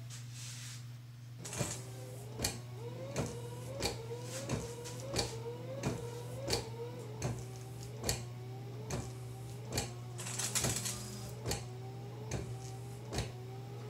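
Windshield wipers on a 1995 Jeep Wrangler YJ start up about a second and a half in and run steadily on their newly installed replacement motor. The motor whines, rising in pitch through each stroke, and there is a sharp click about every 0.7 s as the blades sweep back and forth.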